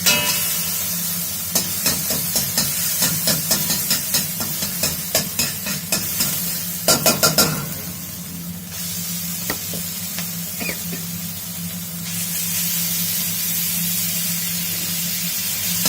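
Food sizzling hard as it is stir-fried in a hot pan, with a spatula clacking against the pan about twice a second, ending in a quick run of four loud strikes about seven seconds in, then steady sizzling. A steady low hum sits underneath.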